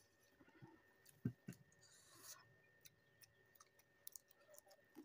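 Faint eating sounds: chewing and small wet mouth clicks, scattered and irregular, with a couple of soft thumps about a second and a half in.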